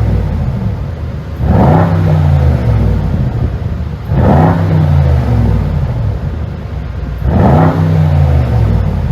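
Mercedes-AMG GT 63 S twin-turbo V8 free-revving at standstill: three quick throttle blips, each rising sharply and then falling back toward idle.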